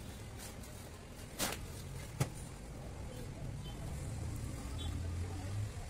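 Rubber inner tube being handled and pressed on a wooden board, with a soft knock about one and a half seconds in and a sharp click just after two seconds, over a low steady rumble that swells near the end.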